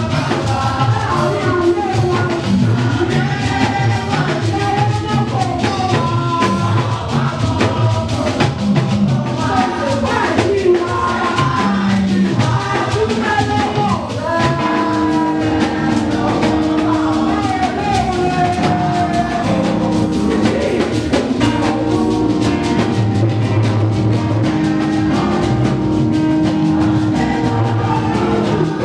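A congregation singing a lively hymn together over a steady, driving drum beat.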